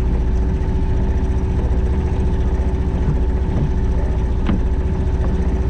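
Sailboat's inboard auxiliary engine running steadily at low speed while the boat motors out of its slip, with a couple of faint ticks.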